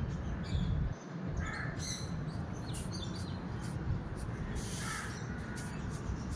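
A bird calling twice, about a second and a half in and again near five seconds, over a steady low rumble.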